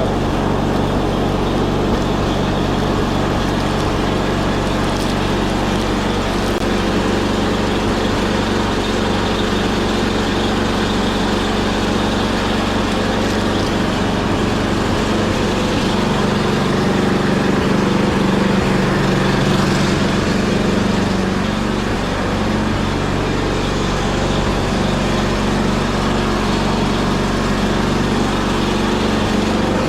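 Gasoline snow blower engine running steadily, shortly after a cold start that took several pulls.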